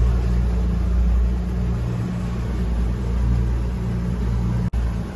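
The boat's twin engines running steadily in forward gear as it cruises, a continuous low drone. The sound cuts out for an instant near the end.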